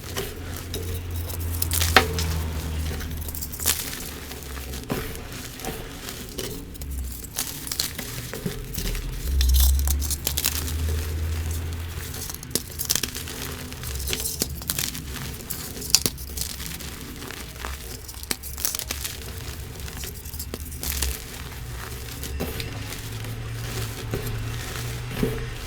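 Pressed blocks of chalky powder being crushed and crumbled by hand: irregular dry crunches and crackles, with a few low thumps from handling.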